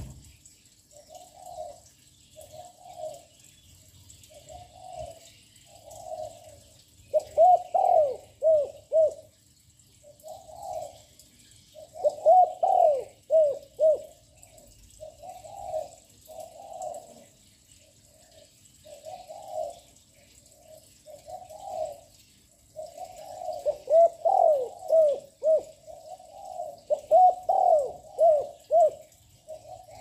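A young spotted dove cooing continuously. Soft single coos run between four loud phrases of several quick notes each.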